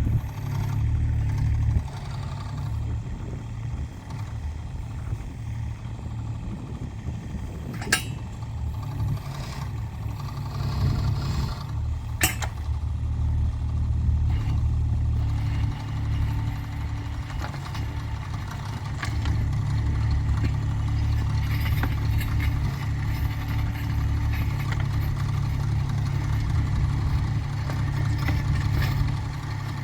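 Kubota mini excavator's diesel engine running steadily, driving a hydraulic post-hole auger as it drills into the ground; the engine gets a little louder in the second half. Two sharp clinks, about eight and twelve seconds in.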